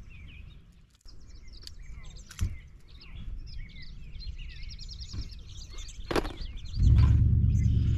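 Songbirds chirping, with a fast trill in the middle, over quiet open-air background. There is a knock about two and a half seconds in and a sharp click about six seconds in. Near the end a loud, steady low rumble sets in.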